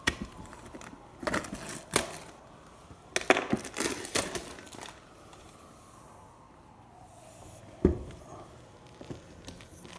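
Plastic shrink-wrap being torn and peeled off a cardboard product box, in two bursts of crinkling and crackling, then a single thump near the end as the box is set down.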